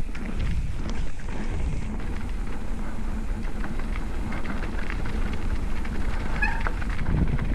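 Mountain bike ridden down a dirt trail: tyres rolling and crunching over dirt and gravel, with the bike rattling and clicking over bumps. A brief squeak about six and a half seconds in.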